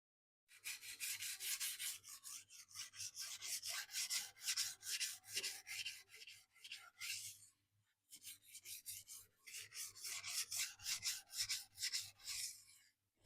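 A sujihiki's steel edge scraping back and forth on a 400-grit Cheefarcut sintered diamond sharpening stone in short strokes, about three to four a second, with a brief pause about seven and a half seconds in. This is the second side of the blade being ground after a burr was raised on the first.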